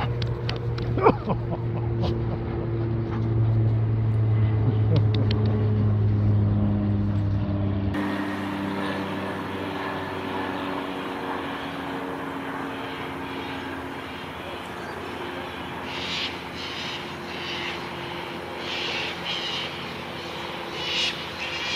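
A low engine drone with a steady hum, swelling over the first few seconds and cutting off abruptly about eight seconds in, with a sharp knock about a second in. Afterwards a fainter background with a few short, higher sounds near the end.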